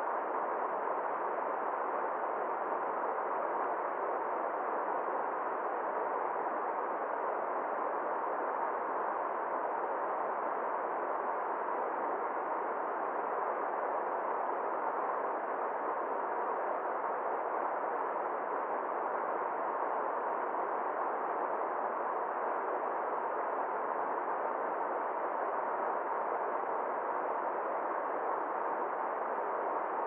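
River water rushing over shallow rapids and stones: a steady, even rush of water noise that never changes.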